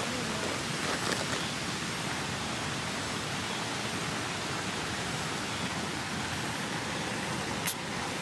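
Steady rush of a mountain stream's flowing water. A brief click sounds near the end.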